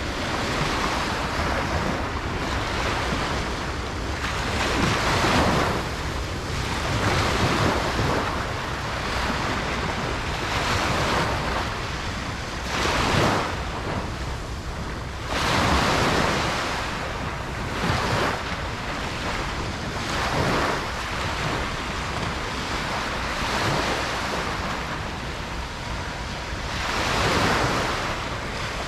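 Ocean surf breaking on a beach: waves crash and wash in one after another every few seconds over a steady low rumble, with some wind on the microphone.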